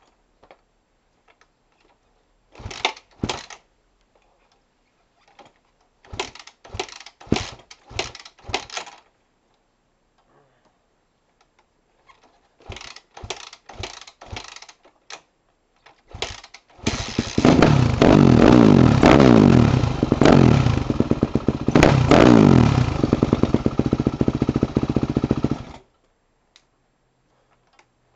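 Yamaha YZ250F four-stroke single-cylinder motocross engine: a series of short bursts as it is turned over and briefly fires, then it catches and runs, revved up and down several times, before it cuts off suddenly about three-quarters of the way through.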